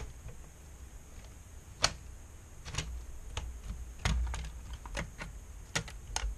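Irregular sharp clicks and taps, about a dozen, as the frame of a 20.1-inch LCD panel is pressed and snapped into place around its edges by hand. The sharpest clicks come about two seconds and four seconds in.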